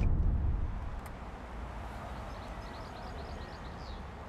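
Low road rumble from a car, fading out over the first second. It gives way to a faint steady outdoor background, in which a bird chirps a quick run of about ten short high notes around the middle.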